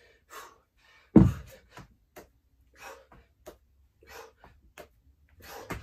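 A man panting hard in short, quick breaths during dumbbell burpees. About a second in there is one heavy thud as he drops to the floor with the dumbbells.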